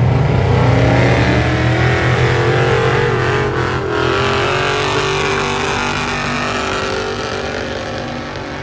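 Diesel pickup truck engine working hard under load as it drags a weighted pulling sled. Its pitch climbs over the first few seconds, then holds steady as the sound grows fainter.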